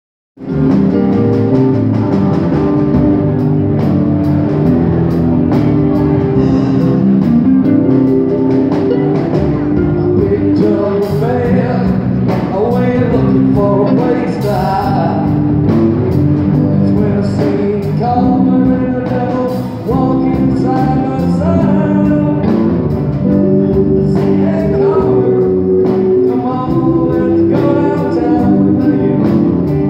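Live amplified band playing: electric guitars and a drum kit, with a man singing into a microphone. The music cuts in just after the start.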